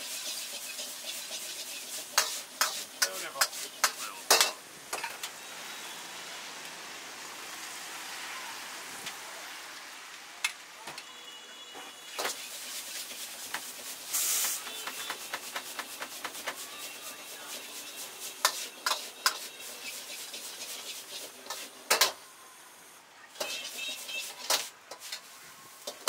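Noodles sizzling in a hot wok while a metal ladle scrapes and clanks against the wok in quick runs of strikes. There is a brief louder hiss about fourteen seconds in.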